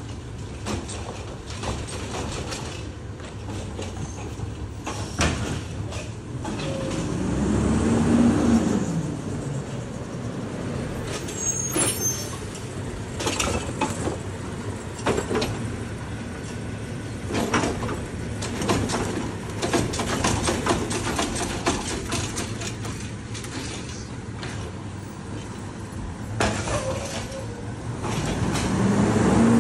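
Heil Rapid Rail automated side-loader garbage truck running, its engine revving up and back down as the hydraulic arm cycles a cart, about eight seconds in and again near the end. Between the revs the engine idles under repeated clanks and bangs of carts being gripped, shaken out and set down.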